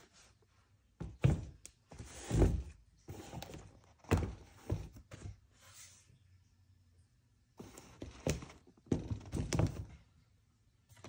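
Air Jordan 11 sneakers being handled and set down on a wooden tabletop: a series of knocks and thunks mixed with rustling. They come in two bursts, the first from about a second in, the second from about eight seconds in.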